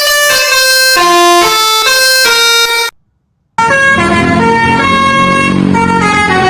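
Basuri telolet bus air horn playing a quick tune of held, stepping notes, cut off suddenly about three seconds in. After half a second of silence the horn tune starts again with a low rumble beneath it.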